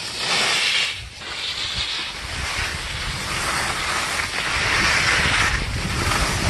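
Skis scraping and carving over packed snow, with wind rushing over the microphone. The hiss comes in surges, dips briefly about a second in, and is loudest about two-thirds through.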